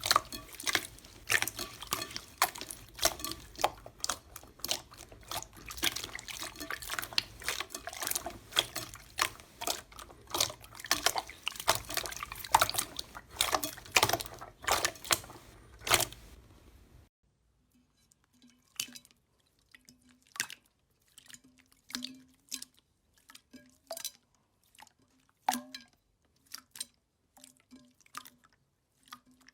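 Slime being squeezed, pressed and stretched by hand, making wet sticky clicks and pops. The pops come thick and fast at first. About seventeen seconds in they break off, and a quieter stretch follows with fewer, separate pops.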